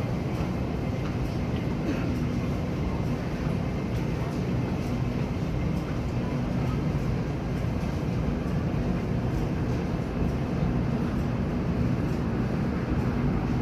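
MTR K-train electric multiple unit at an underground station platform: a steady low rumble with a constant low hum and faint scattered clicks.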